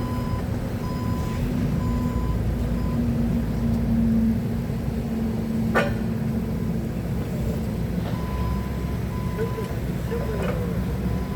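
Forklift engine running steadily, with its warning alarm beeping in an even on-off pattern during the first couple of seconds and again from about eight seconds in. A single sharp knock sounds a little before the middle.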